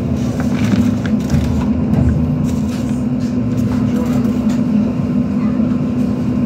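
Citadis 302 tram running along the line: a steady low hum and wheel-on-rail rumble, with scattered light clicks.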